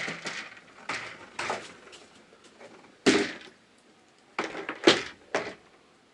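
A series of short knocks and scrapes as a removed RV interior cover is handled and dumped out to clear the dirt inside it, the loudest knocks about three and five seconds in.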